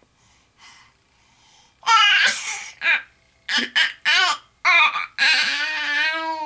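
Baby vocalizing while sucking on his own toes: after a quiet start, a string of short laughing squeals, then one long held squeal near the end.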